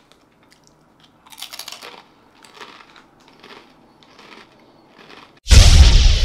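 A man chewing something crunchy close to the microphone: about five crunches, roughly a second apart. About five and a half seconds in, a sudden loud, deep boom with a whoosh opens a logo sting.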